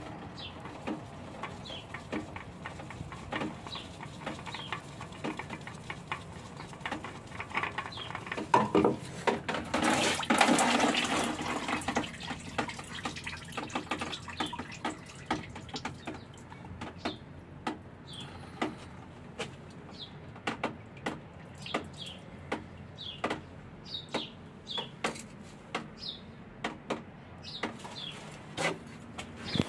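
Scattered clicks and knocks of hand work on a car's oil filter from underneath, with a louder spell of splashing liquid about nine to twelve seconds in, as oil runs out of the loosened filter.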